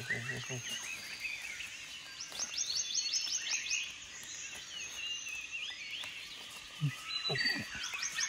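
Forest ambience: wild birds and insects calling over a steady outdoor hiss, with a run of rapid, evenly repeated rising chirps about two to three seconds in and wavering calls throughout. A brief low sound about seven seconds in is the loudest moment.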